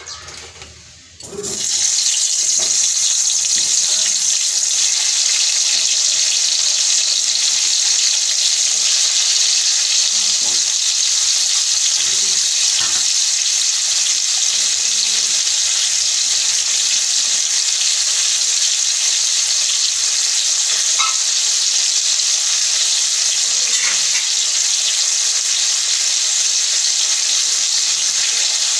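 Slices of pointed gourd (potol) sizzling in hot oil as they fry, a steady, loud hiss that starts suddenly about a second and a half in, when the slices go into the pan.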